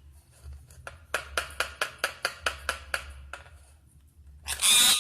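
Parrot making a quick run of a dozen or so clicks, about six a second. Near the end it gives a loud, harsh squawk.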